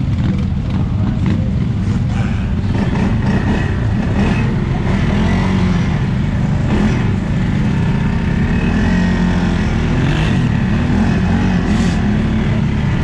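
Off-road vehicle engine running under a steady low rumble, its pitch rising and falling as the throttle changes, with scattered knocks and rattles.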